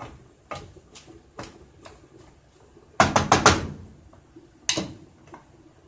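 Wooden spoon stirring cabbage in a saucepan with light clicks. About three seconds in, the spoon is knocked against the pot in a quick run of four or five loud knocks, and there is one more knock about a second and a half later.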